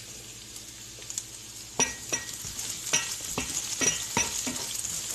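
Onion and garlic sizzling in hot vegetable oil in a pan. From about two seconds in, a utensil knocks against the pan in a regular rhythm of two or three strokes a second as the onion is stirred.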